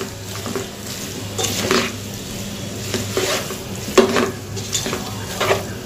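Plastic spatula stirring and tossing noodles in a nonstick pot on the heat: irregular scraping strokes, the loudest about four seconds in, over a light sizzle.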